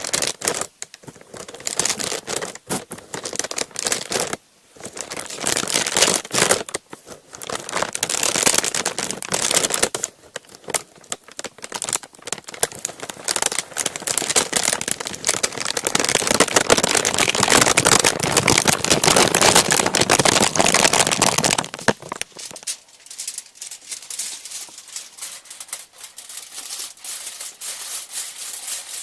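A crinkly sheet being crumpled and rustled in dense stretches of crackling with brief pauses between them, turning to a softer, quieter crinkle for the last several seconds.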